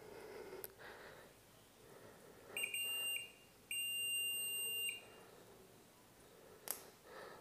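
Continuity buzzer of a DT830D digital multimeter beeping twice, a short beep and then a longer one of about a second, as the probes touch the conductor of an audio-video cable. The beep means the circuit is closed and the wire is good. Sharp clicks come from the probes on the plug.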